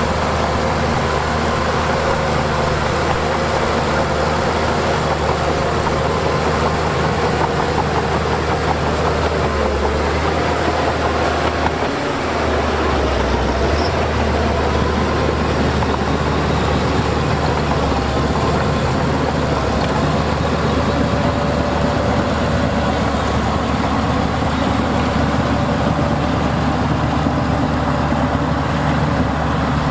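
Heavy diesel earthmoving machinery running steadily under load, with a wavering whine over the engine note and a brief dip in the engine sound about twelve seconds in.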